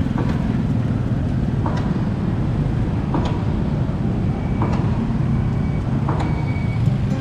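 Steady rumble of street traffic, mostly small motorbikes passing through a junction. A short soft knock repeats about every one and a half seconds.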